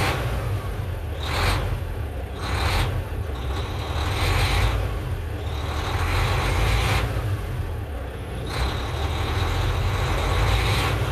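Volvo semi truck's diesel engine idling steadily just after a start, its air tanks still low and building pressure. Loud hissing bursts of one to two seconds come and go over the idle, several times.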